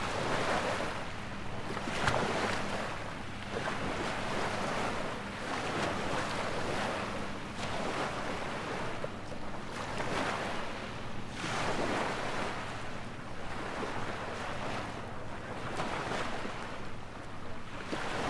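Small bay waves washing onto the beach, swelling and fading every second or two.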